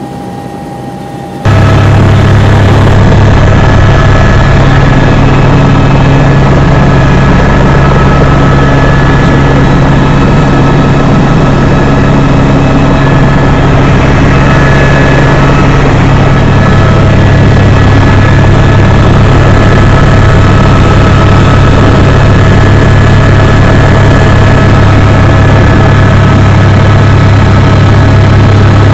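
Eurocopter AS350 B3 helicopter in flight, heard from inside the cabin: a loud, steady drone of the single turboshaft engine and rotors, with several steady whining tones over it. It cuts in suddenly about a second and a half in.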